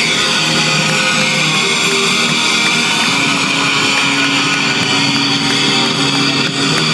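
Live rock band playing loud, led by a Telecaster-style electric guitar with notes and chords held for seconds at a time.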